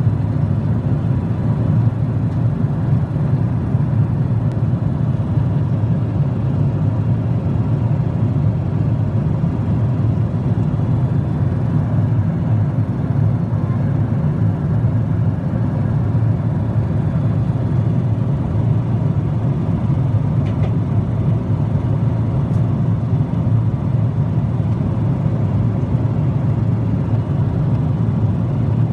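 Steady low rumble inside a jet airliner's cabin at cruise: engine and airflow noise with no change in level.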